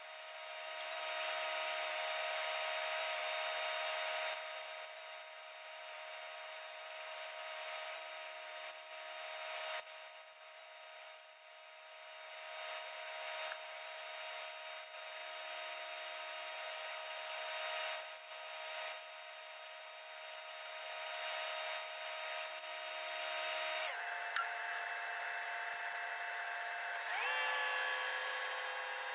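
Angle grinder running steadily against the steel trommel drum, grinding out and blending cracks before welding. Its whine shifts pitch near the end and rises again.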